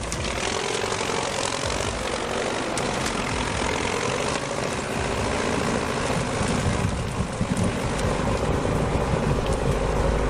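Tractor engine running hard under load, a steady loud drone with a deeper rumble building near the end.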